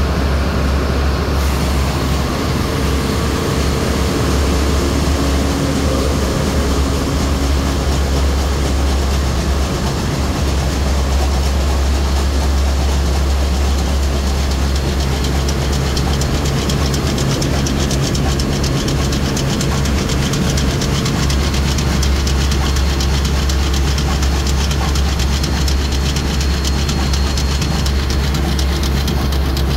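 Bulk carrier's engine room machinery running: a loud, steady din with a deep constant hum underneath and a few steady tones above it.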